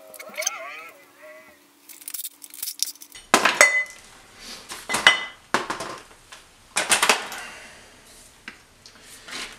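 Metal engine parts and hand tools clinking and clanking while components are unbolted and pulled off an engine. There are several separate sharp metallic knocks, some with a brief ring, with the biggest ones about three and a half, five and seven seconds in.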